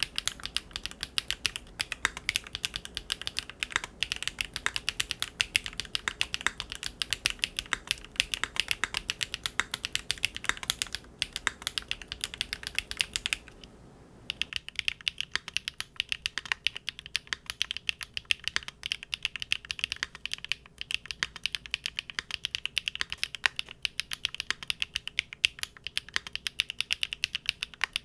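Fast, continuous typing on a Linworks Big Whale custom mechanical keyboard with GEON Raw Zero switches on a polycarbonate plate. There is a short pause about halfway through, then the typing resumes.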